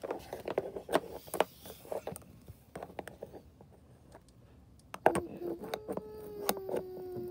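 Small plastic clicks and knocks with light splashing as a plastic doll is dipped head-first into a cup of soapy water. About five seconds in, a voice comes in and holds one long steady note.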